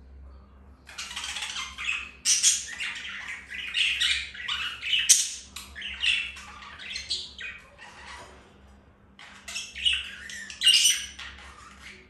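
Budgerigar chattering: a fast, busy run of chirps, clicks and squawks lasting most of the time, with a pause of about a second before a shorter second run near the end.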